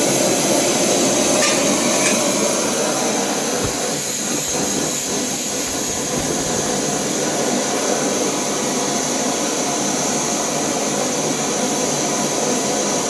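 MSR WhisperLite Universal backpacking stove burning steadily in liquid-feed mode with its flame turned up: a constant rushing noise. It is heating a 4-litre pot of water that is showing small bubbles but is not yet at a boil.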